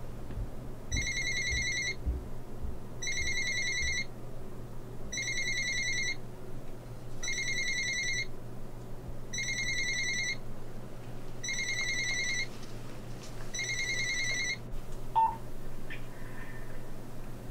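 Telephone ringing with an electronic ring: seven rings of about a second each, one every two seconds or so, stopping about fifteen seconds in. A steady low hum lies underneath.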